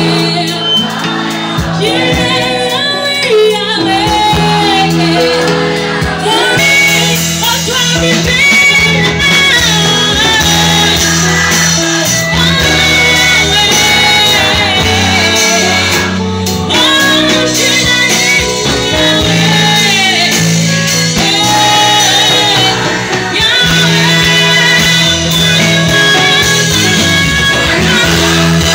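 Live gospel worship music: a woman sings lead into a microphone over a live band of drum kit, keyboard and electric guitar, without a break.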